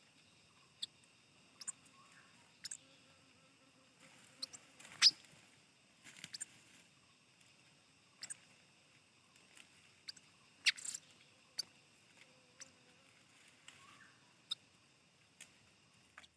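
Faint, scattered clicks and light rustling, the loudest a sharp click about five seconds in and a cluster near eleven seconds, over a faint steady high hiss.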